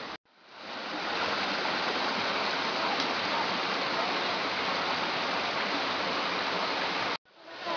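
Steady rush of a fast-flowing rocky stream. It fades in at the start and breaks off for a moment near the end.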